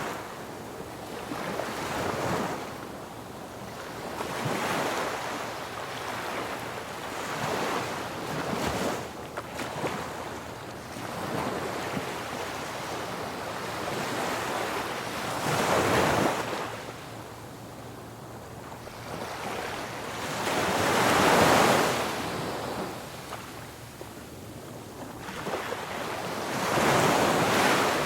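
Ocean waves breaking on a beach, the surf surging and falling away every few seconds, with the biggest swells at about sixteen, twenty-one and twenty-seven seconds in.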